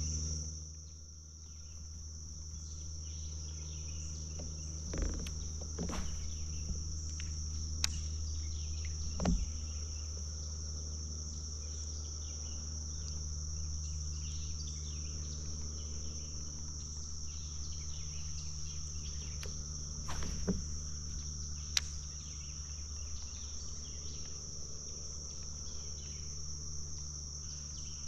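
Insects calling in a steady high-pitched chorus over a steady low hum, with a handful of short knocks scattered through.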